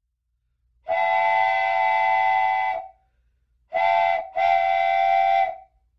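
Diesel locomotive air horn sounding a chord: a long blast of about two seconds, a short blast, then another long one.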